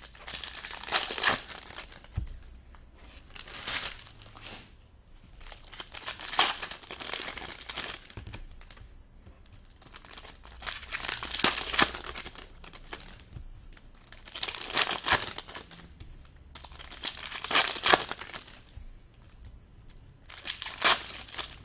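Foil wrappers of hockey card packs being torn open and crumpled, in repeated crinkling bursts every few seconds.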